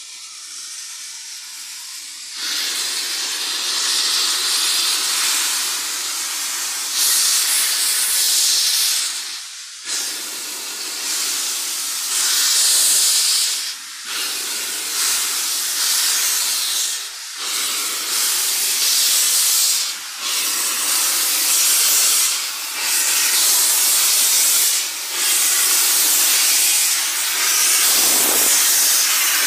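An LMS Ivatt Class 2MT 2-6-0 steam locomotive hissing steam loudly as it draws near, growing louder over the first few seconds. The hiss breaks off briefly every few seconds.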